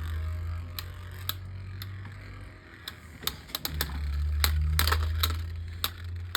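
Two Beyblade Micros tops spinning in a small plastic stadium, a low rumble with many sharp plastic clicks and clacks as they knock into each other and the stadium walls.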